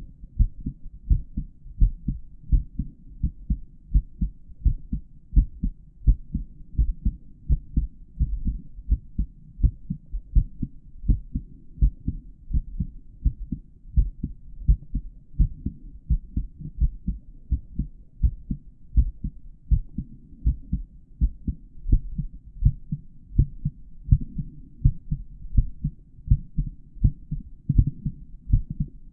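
A man's heartbeat heard through a stethoscope's earpieces: a steady, even rhythm of low lub-dub thumps.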